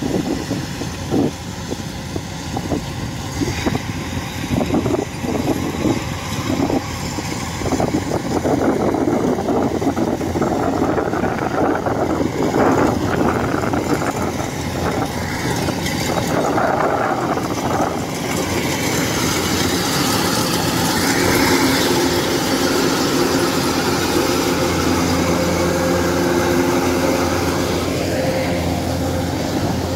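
Kubota rice combine harvesters running steadily as they cut the crop, a continuous engine and machinery hum that grows a little louder and steadier in the second half.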